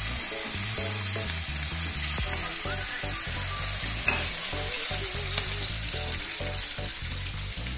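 Butter, honey and garlic sauce sizzling and bubbling in a small non-stick frying pan on a gas hob, with one brief knock about four seconds in.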